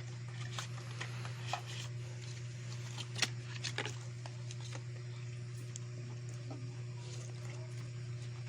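Light clicks, taps and rustles of hands handling an action camera and its packaging, the sharpest click about three seconds in, over a steady low hum.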